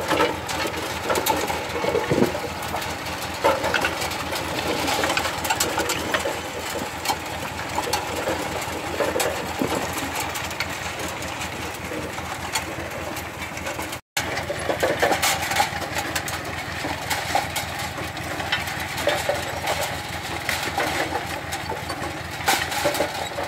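Engine of potato-harvesting machinery running steadily, with continuous rattling and clicking on top. The whole sound drops out for an instant about two thirds of the way through.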